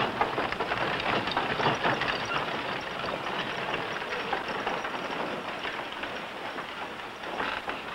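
Horses' hooves and a horse-drawn wagon clattering on a dirt street, a dense, rattling clatter that slowly grows quieter.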